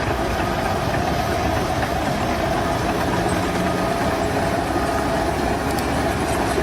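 An engine or machine running steadily, a dense even noise with a constant tone through it.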